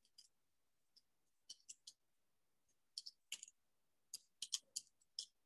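Near silence broken by faint, irregular sharp clicks and taps, a few spread out early and a quicker cluster of about five about four seconds in.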